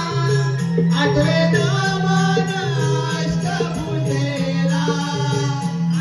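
Live folk music: voices singing over a barrel drum and low held bass notes, with a steady beat.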